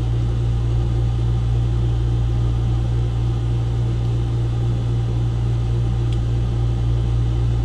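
Steady low machinery hum, even and unchanging. About six seconds in comes a faint click: a crimped pin seating in a Deutsch connector.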